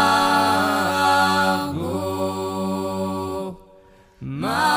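Slow, chant-like vocal music: long held notes that glide from one pitch to the next. It breaks off for about half a second a little past the middle, then starts again.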